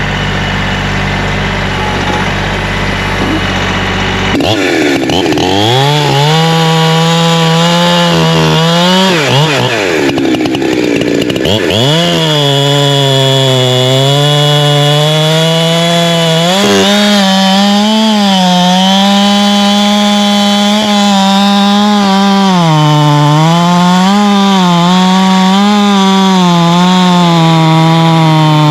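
Holzfforma G372XP two-stroke chainsaw idling, then throttled up about four and a half seconds in and cutting into wood. The engine pitch dips and recovers again and again as the chain bogs down in the cut and spins back up.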